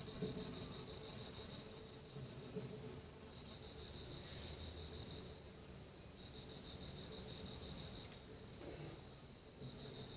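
Insects trilling: a steady high-pitched trill that swells and eases off every few seconds.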